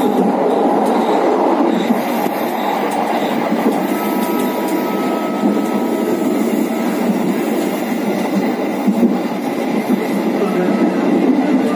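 Bukit Serelo passenger train running along the track, heard from the back of the last carriage: a steady, loud rumble of wheels on rail.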